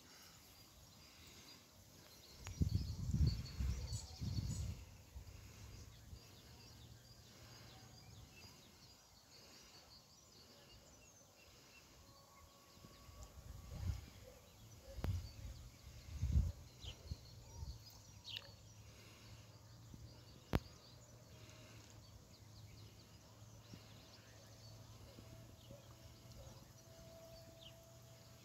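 Outdoor ambience with gusts of wind rumbling on the microphone a few seconds in and again around the middle, faint small-bird chirps, and a single sharp click.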